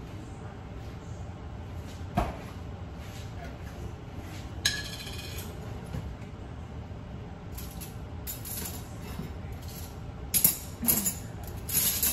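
Scattered clinks and knocks of dishes and cutlery being handled: a sharp knock about two seconds in, a brief rattle near the middle, and a run of clinks in the last few seconds.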